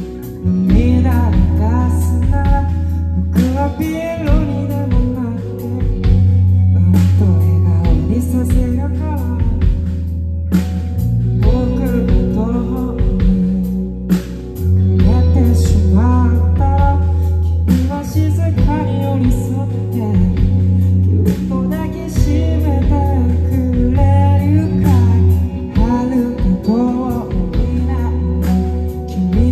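A rock band playing live: a male lead vocal over electric guitars, bass and drums, heard from among the audience.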